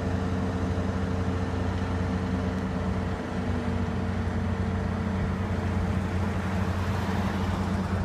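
Road traffic at an intersection: a steady low engine hum from an idling vehicle close by, with cars moving through under a constant traffic noise.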